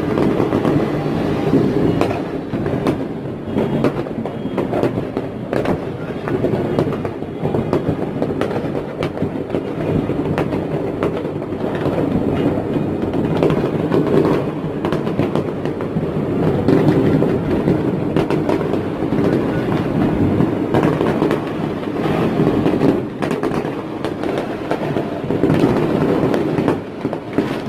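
Fireworks display: a dense, continuous barrage of overlapping bangs and crackles that blur into a steady rumble.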